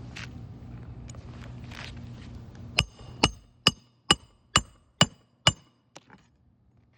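Hammer driving a roofing nail to fasten an asphalt shingle back down: seven sharp, ringing blows in quick even succession, about two a second, after a couple of seconds of low steady hum and rustling.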